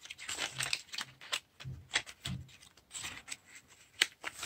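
Handling noise from a cardboard pack of Derwent pencils: irregular light clicks and rustles as it is turned and opened.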